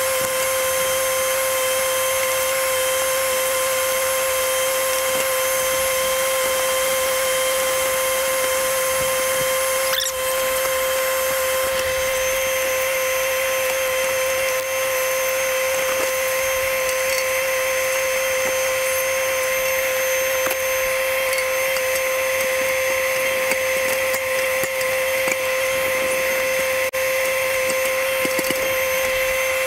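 Kubota backhoe tractor running steadily, a constant high-pitched whine, with a few faint clicks and knocks in the second half as the backhoe works.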